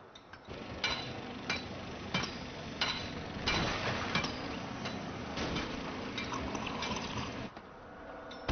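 Water running and dripping, with sharp drip-like ticks at irregular gaps of roughly half a second over a steady wash.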